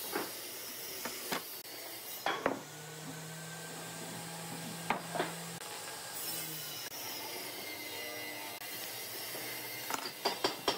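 Scattered light knocks and taps of a steel rule and square against a hardwood board during marking out, over a steady workshop hiss, with a short run of quick knocks near the end as the board and tools are handled.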